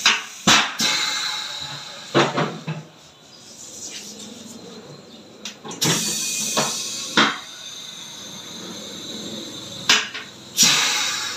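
A heavy steel wheel and tyre being manhandled against a tyre-changer machine: irregular sharp metal clanks and knocks, about seven of them a second or more apart, with scraping and shuffling in between.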